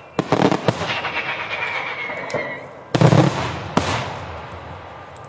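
Daytime fireworks: a quick string of sharp bangs and cracks, a whistle falling in pitch, then two loud bangs about three and four seconds in.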